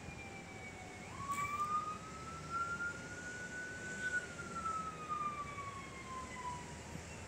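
An emergency vehicle siren wailing in slow sweeps over a steady hum of traffic. The siren's pitch jumps up about a second in, climbs slowly for a few seconds, then falls slowly again.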